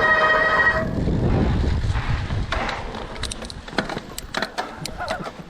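A bike's front brake squealing in a high, steady, multi-toned screech that cuts off about a second in, followed by a low rumble and a run of sharp clicks in the second half.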